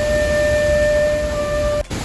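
Loud, steady roar of a large waterfall, with a held steady tone over it that stops shortly before the end, followed by a brief dropout.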